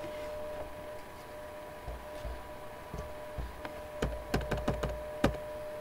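Scattered clicks and light knocks from working a computer, with a quick run of them about four seconds in, over a steady electrical hum.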